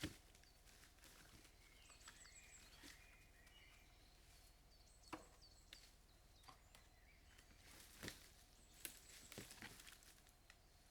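A few scattered sharp knocks and taps, as of wood or stones being handled and set down, with faint high bird chirps recurring in the background.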